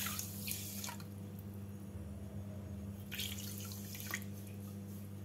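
Water poured from a cup onto granulated sugar in a metal pan, a faint trickling splash in two spells, about a second in and again near the end, over a steady low hum.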